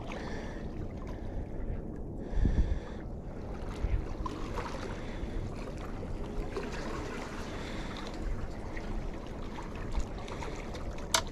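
Wind buffeting the microphone over water washing against jetty rocks, with gusty thumps a few seconds in and a sharp click near the end.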